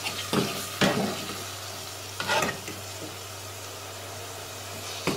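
Chicken pieces, chopped onion and oil sizzling as they fry in an aluminium pot. A metal fork scrapes and turns the chicken against the pot a few times: about half a second in, near one second, around two and a half seconds, and near the end.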